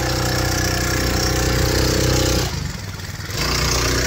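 Small outboard motor running steadily on the bumper boat. The engine sound drops away briefly about two and a half seconds in, then picks up again.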